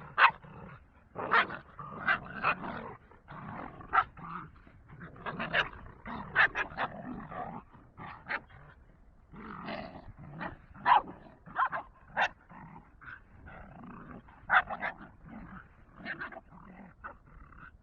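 Dogs play-fighting: growling broken by many short, sharp barks and yips at irregular intervals.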